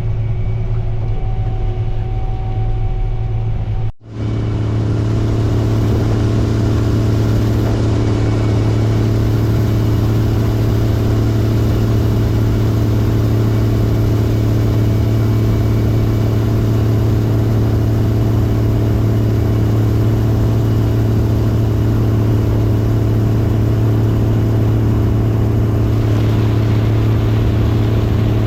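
Combine harvester's engine running at a steady speed, heard from inside the cab as a constant low hum. The sound drops out suddenly for a moment about four seconds in, then the same steady hum carries on.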